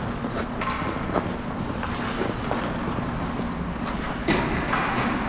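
Sounds of a game in play: a steady rushing background noise with a handful of sharp knocks and clicks scattered through, the loudest about four seconds in.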